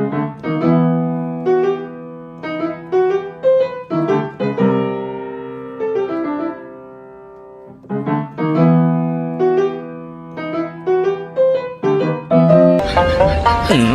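Background solo piano music: short phrases of struck notes that ring and fade, with a longer fading pause midway. Near the end a louder, fuller music track with a deep bass cuts in.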